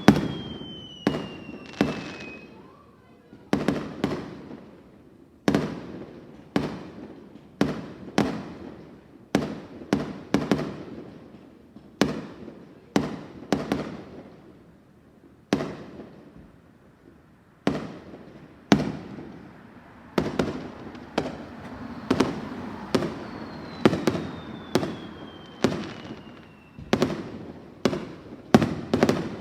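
Aerial firework shells bursting one after another, about one bang a second and a little faster near the end, each bang trailing off in echo. Twice, a whistle falls in pitch over a couple of seconds, at the start and again about 24 seconds in.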